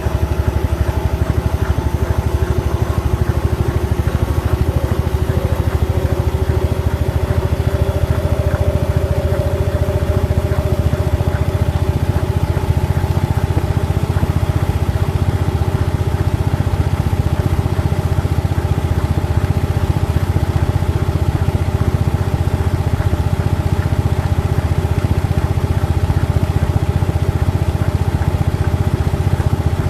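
Washing machine drum spinning on a 900 rpm spin cycle: a loud, steady low drone with a whine above it that shifts a little in pitch about ten seconds in.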